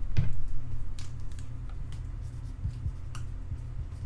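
Scattered light clicks and handling noises, a few separate ticks over a steady low hum.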